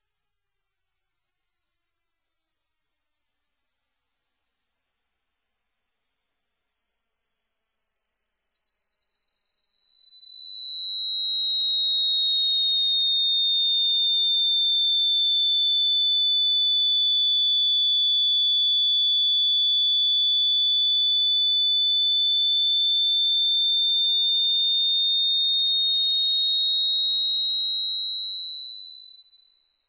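A single pure electronic tone, played steadily throughout as a tinnitus-like ringing. It glides slowly down from a very high whistle over the first half, then rises a little toward the end.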